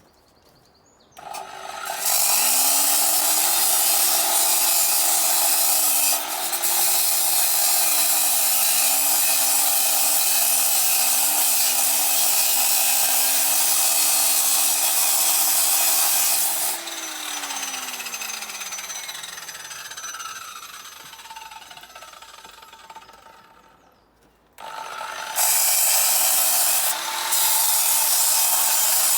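Power tool with an abrasive cutting disc, an angle grinder or disc cutter, spinning up about a second in and grinding through metal with a loud, hissing screech over a steady motor whine. Past the middle the cut eases and the motor winds down in a long falling pitch; after a brief pause the tool spins up again and cuts near the end.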